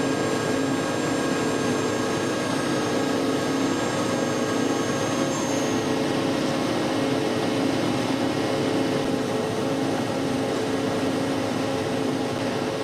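Gear hobbing machine running steadily while cutting gear teeth: an even mechanical drone with several constant tones, some high tones dropping out about halfway through.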